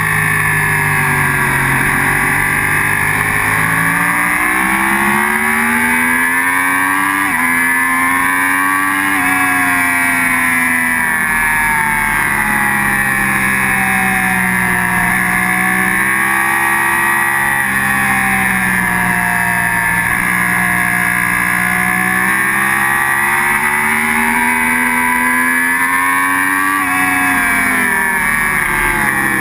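Sport motorcycle engine heard from on board, running at speed on a race track. Its pitch climbs and falls again and again as the bike accelerates and brakes, with a sudden drop about seven seconds in, over a constant rush of wind.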